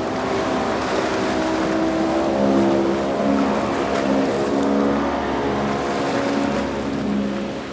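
Pro-Line center-console boat's single outboard motor running at speed, a steady engine drone over the rush of water and spray from the hull, dropping in level near the end.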